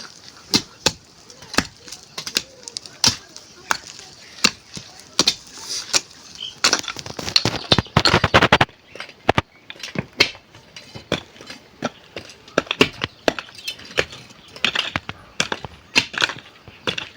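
Irregular sharp knocks and cracks of hand tools striking, about one or two a second, with a quick dense flurry of blows about seven to eight and a half seconds in.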